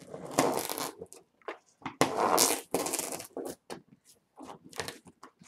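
Packing tape being slit with the prongs of a phone charger and ripped from the top of a large cardboard box, in irregular scraping, crackling bursts with short clicks.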